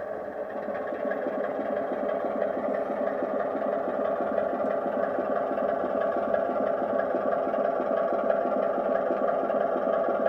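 Model class 25 locomotive's sound decoder playing recorded diesel engine sound through its small speaker, running steadily with a pulsing beat that grows a little louder over the first few seconds.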